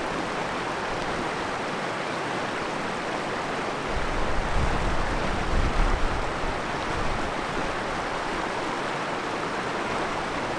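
River rapids rushing over rocks: a steady wash of white water. A low rumble rises over it about four to six seconds in.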